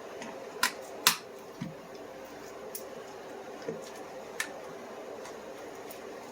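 Sharp clicks and light taps of small hard objects as a knife and tools are handled, about five in all, the loudest just over a second in, over a steady low hum.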